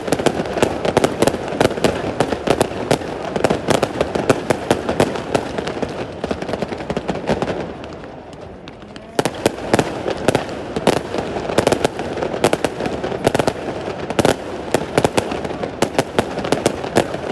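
Aerial fireworks bursting in rapid succession: dense crackling and popping bangs. The volley eases into a short lull about halfway through, then a fresh barrage starts abruptly.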